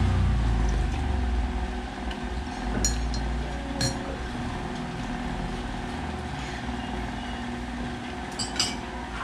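Forks clinking a few times against plates, over a steady low rumble that is loudest in the first second or two.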